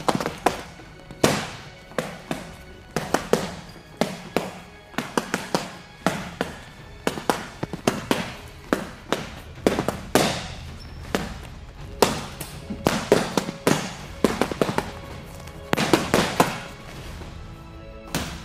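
Boxing-gloved punches landing on a hanging heavy punching bag in fast combinations. Sharp smacks come in quick runs of two to six, with short pauses between runs.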